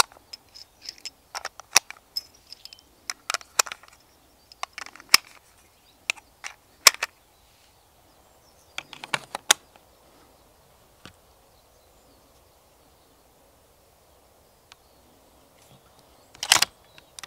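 6.5 Creedmoor cartridges clicking one at a time into a Mauser M18 rifle magazine as it is loaded: a run of sharp clicks over the first several seconds, then a few more spaced out. A louder clatter comes near the end.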